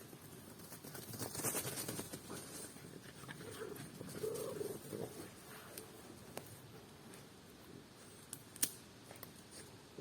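French bulldogs and a Jack Russell terrier moving about on the forest floor: rustling and scuffling, loudest in the first few seconds, with a short low sound about four seconds in and a couple of sharp clicks near the end.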